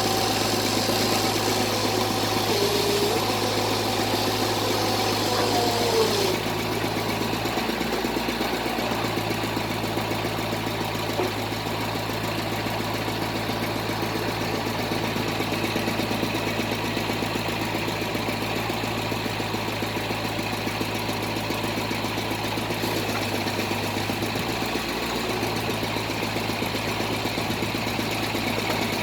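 Bored-pile drilling rig's machinery running steadily with a low hum; a higher whine drops in pitch and stops about six seconds in.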